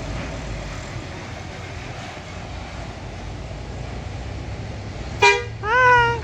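A tour bus's engine rumbles low, then about five seconds in its basuri telolet horn sounds two notes: a short blip followed by a longer, slightly higher note that bends upward.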